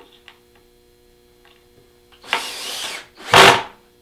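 Cordless drill driving a screw in short bursts: one run about two seconds in, then a shorter, louder one a second later. A cardboard strip is being screwed down to hold the deer hide's edge flat against the drying board.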